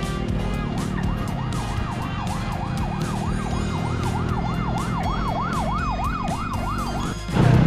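A siren sweeping rapidly up and down in pitch, about twice a second, over a steady low rumble; it cuts off abruptly near the end.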